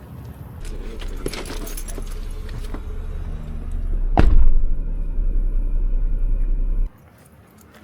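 Car driving slowly on a trail: a steady low rumble with rattling and jingling, and one sharp, loud knock about four seconds in. The rumble cuts off suddenly near the end as the car comes to a stop.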